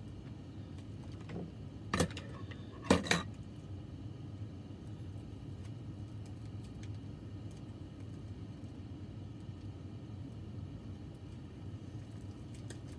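Small hard objects being handled and set down on a table: a faint click, then two sharp knocks about two and three seconds in, over a steady low background hum.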